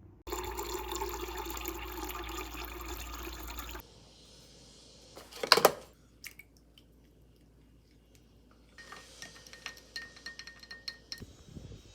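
Water running for about three and a half seconds, then one sharp loud clink about five seconds in, followed near the end by a quick run of light clicks and taps.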